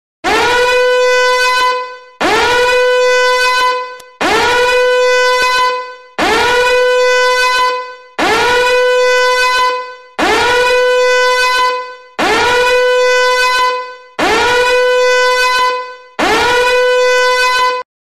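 Alarm ringtone: eight loud, blaring tones, each nearly two seconds long with a short gap between, every one swooping up briefly at its start and then holding one steady pitch.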